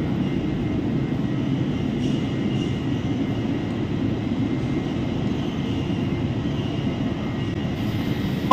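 Steady low rumble of airport background noise on an open-air terminal walkway, with a faint high whine above it.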